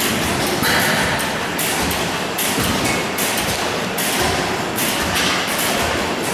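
Springfield Gas Engine Co. 5 HP Type A stationary gas engine running, a regular beat of clatter and exhaust about every 0.8 s over a steady mechanical din.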